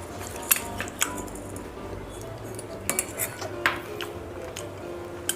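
Spoon clinking and scraping against a plate and bowl as rasgulla sweets are scooped up, with several sharp clinks spread through the stretch.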